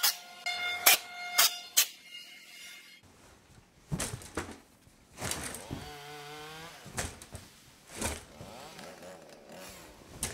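Woodshop power-tool noise. A few sharp clacks with a short ringing follow each other in the first two seconds. From about three seconds in, an electric hand tool runs in uneven spurts, its pitch sweeping up and down.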